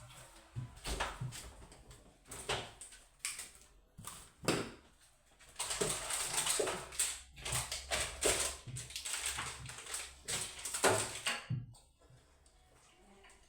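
Items from a refrigerator being handled and set down: a run of knocks, clacks and scrapes that stops about twelve seconds in.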